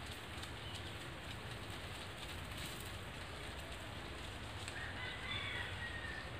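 Outdoor ambience: a steady hiss with faint scattered crackles, and a short, thin bird whistle about five seconds in.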